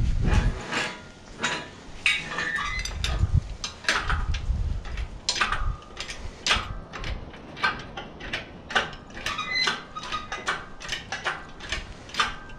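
Steel lifting chain and hooks clinking and clanking against a bare engine block while the block is rigged to an engine hoist: many short metallic clicks and rings, with a few dull thumps.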